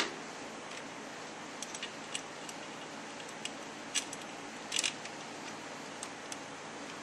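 Light metallic clicks and taps from a solenoid and small bolts being handled against an automatic transmission valve body: a sharp click right at the start, scattered lighter clicks, and a quick cluster of them about five seconds in, over a faint steady hiss.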